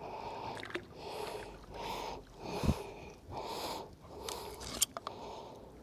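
A magnet-fishing rope being hauled in hand over hand, a rhythmic run of swishes as it is pulled up with a bike rim on the magnet. There is a knock about two and a half seconds in and a sharp click near the end.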